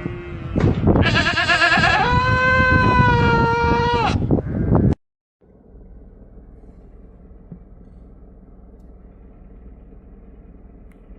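A long, loud animal bleat, wavering at first and then held steady, lasting about three seconds. After a sudden cut, a quieter steady hum continues.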